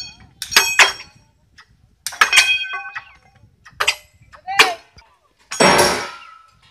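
Steel crowbars striking and levering against a steel rail on concrete sleepers: a series of sharp metallic clinks and clanks that ring briefly, with a longer grating scrape about two-thirds through as the rail is shifted into place.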